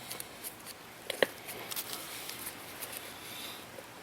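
Faint scraping and small clicks of a tire-plug kit's reamer tool being worked into the puncture in a lawn tractor tire's sidewall, with one sharper click about a second in.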